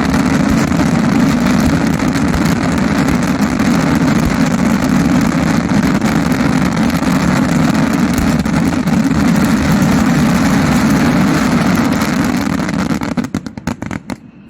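Firework display finale: a dense barrage of salutes going off so fast they merge into one loud, continuous rumble, which breaks into a few separate bangs near the end and then stops.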